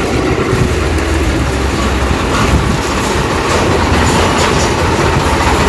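Diesel tractor engine running as the tractor drives past at close range pulling a water tanker trailer: a loud, steady low rumble.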